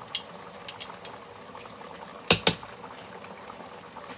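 Metal tongs clicking against a cooking pot, then two sharp metal knocks a little over two seconds in, over a steady simmering hiss from the pot on the stove.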